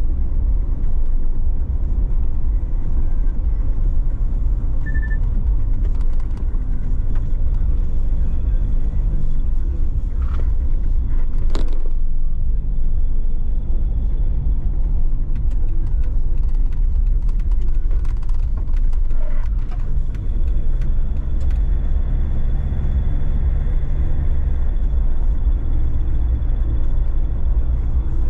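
Car driving along a narrow lane, heard from a camera on its bonnet: a steady low rumble of engine, tyres and wind on the microphone. A single sharp knock comes a little before halfway.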